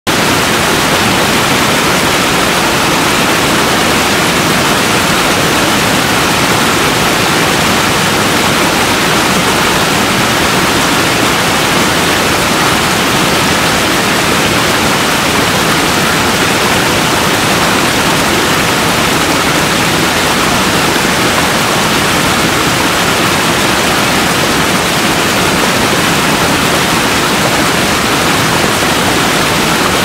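Water of a small waterfall cascading over rocks, a steady, unbroken rush.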